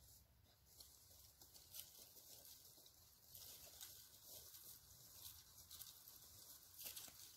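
Faint rustling and crackling of dry fallen leaves underfoot as a dog and a person walk through the leaf litter, with a few louder crunches.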